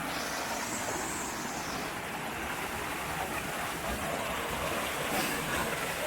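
Woodland waterfall rushing steadily as the stream tumbles down over the rocks.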